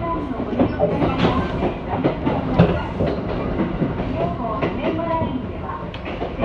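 Train running along the track, heard from inside the carriage: a steady rumble with wheels clicking over rail joints and points.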